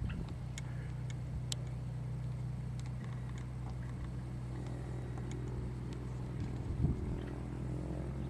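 A light piston airplane's engine running steadily on the ground before takeoff: a low, even hum with a few faint clicks.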